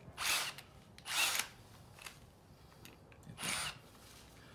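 Einhell TE-CD 18 Li-BL brushless cordless drill run in three short bursts while its keyless chuck is tightened onto a screwdriver bit.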